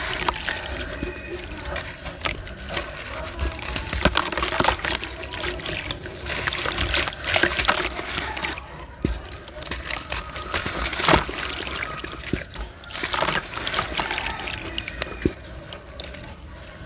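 Red sand stones crumbling and being crushed: a dense, uneven run of gritty crunches and crackles, with loose sand trickling.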